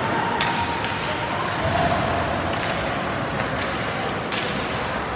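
Ice hockey game in a rink: a steady hiss of skates on the ice, with a sharp knock shortly after the start and another near the end.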